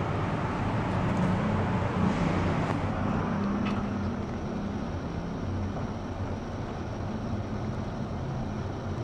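A 1988 Goldstar geared traction elevator, modernized by Sigma, heard from inside the cab as the car goes down: a steady low hum and rumble of the ride, a little louder in the first few seconds.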